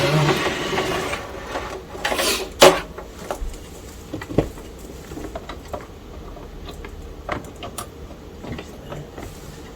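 Cables being handled and routed: rustling with scattered clicks and knocks, busiest in the first few seconds with the sharpest click a little over two and a half seconds in, then sparser light ticks.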